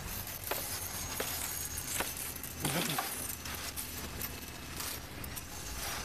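Leafy tree branches rustling and being pulled about during tree trimming, with several sharp twig snaps or knocks and a short creak a little under halfway through.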